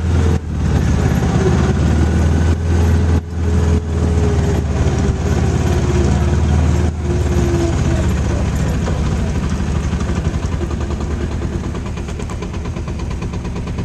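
Engine of a Mule utility vehicle running as it drives, a steady low drone that eases off gradually in the second half as the vehicle slows.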